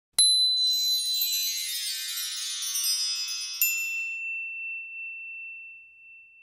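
Logo sound effect of bright chimes: a sharp ping, then a shimmering cascade of high chiming tones, a second ping about three and a half seconds in, and one high tone left ringing that fades away.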